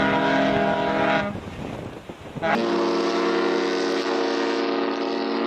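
A ship's horn sounds a long, deep blast of several tones at once and cuts off about a second in. After a short, quieter stretch, another ship's horn with a different chord of tones starts abruptly and holds steady.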